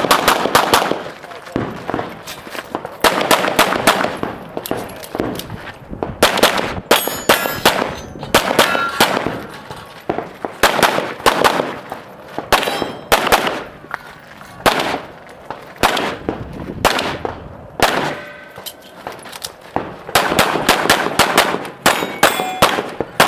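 Competition pistol fired in quick strings of several shots a second, with short pauses between strings as the shooter moves between positions. Some hits on steel targets ring with a metallic clang.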